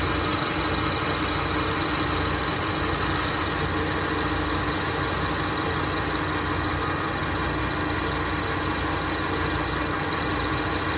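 A metal-working machine tool running steadily under load, an even mechanical noise with a thin, high, steady whine over a low hum.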